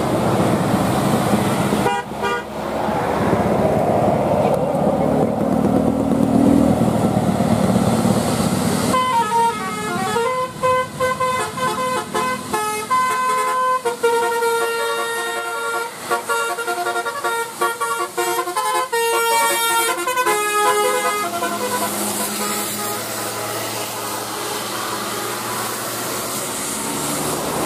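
Bus telolet horn, a multi-tone horn playing a tune of shifting notes for about twelve seconds, starting about a third of the way in. Before and after it there is steady engine and road noise.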